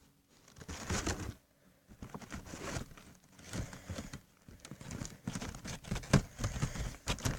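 Paper and sellotape being handled: irregular rustling and crinkling with many small clicks and taps.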